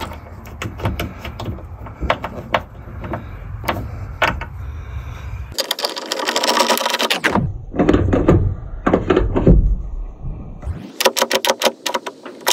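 Hand tools and metal parts clicking and knocking while work goes on at a van's hood strut mounts, with a second or so of rustling noise about halfway through. Near the end comes a quick run of clicks from a ratchet wrench working a bolt.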